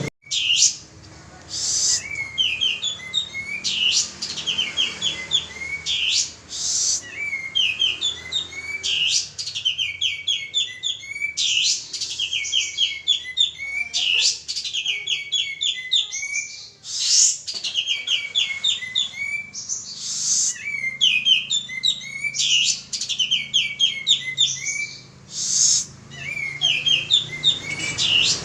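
Male kapas tembak, a bulbul, singing vigorously: fast phrases of quick, sharp chirping notes repeated one after another with only brief pauses.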